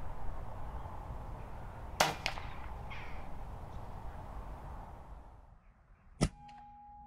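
A moderated Daystate air rifle fires once about two seconds in: a short sharp crack, followed about a quarter second later by the fainter thwack of the pellet striking a rabbit about 34 metres away. Another sharp crack comes near the end.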